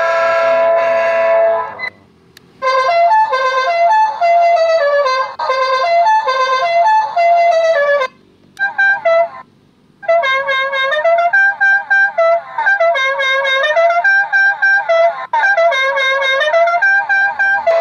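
Electronic horn module sounding: a steady multi-tone train-horn chord for about the first two seconds, then after a short gap a horn melody of quick stepping notes, broken twice by brief pauses.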